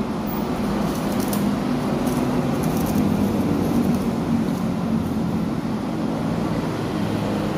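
Steady low background rumble, with a few faint crisp crunches of a rice cracker being bitten and chewed in the first three seconds.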